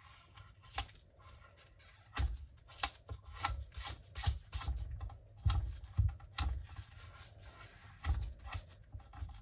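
Cured resin edge being rubbed down by hand with an abrasive to soften it: irregular scraping strokes that start about two seconds in.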